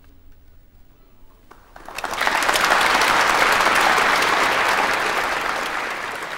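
The koto ensemble's last notes die away faintly, then audience applause breaks out about two seconds in, swelling quickly and beginning to fade near the end.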